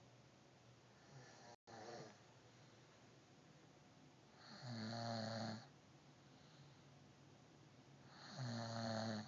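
A woman snoring in her sleep: two loud snores about three and a half seconds apart, each lasting about a second, after a fainter one near the start.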